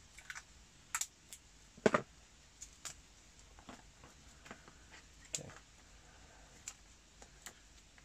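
Irregular small clicks and crackles of hands working with wires and a strip of green-and-yellow electrical tape, with a louder knock about two seconds in.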